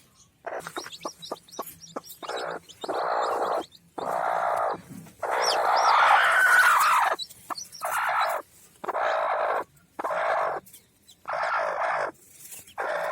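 Chicken clucking and calling: a quick run of short clucks, then a string of separate longer calls, the longest lasting about two seconds in the middle.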